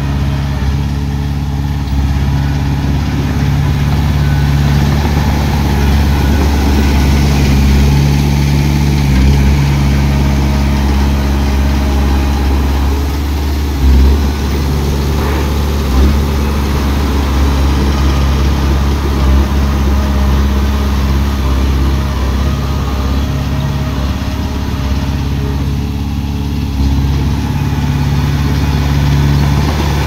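Heavy construction machine's diesel engine running steadily at a low, even pitch. Two short knocks come about two seconds apart near the middle.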